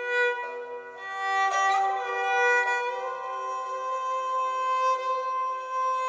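Sampled bowed-string phrase from Sonuscore's Ethnic String Phrases Kontakt library. A fiddle-like bowed string plays a melodic line over a steady held note, with an upward slide in pitch a little under two seconds in.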